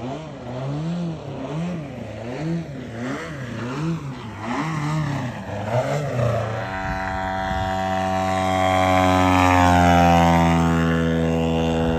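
Radio-control aerobatic airplane's engine and propeller, rising and falling in pitch about every two-thirds of a second as the plane maneuvers low over the runway. About two-thirds of the way through it changes to a steady drone that grows louder, loudest about ten seconds in, as a plane passes close.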